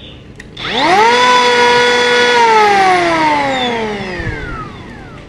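Cordless 21 V brushless electric hand planer run briefly without cutting: its whine rises to full speed about a second in, holds for over a second, then falls steadily as it is switched off and the cutter drum coasts down.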